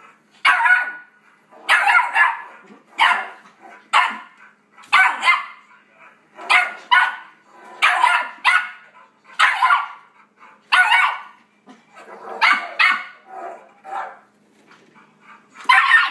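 Yorkshire terrier puppy barking sharply and repeatedly, in singles and quick pairs about once a second, excited by dog barks playing from a computer's speakers.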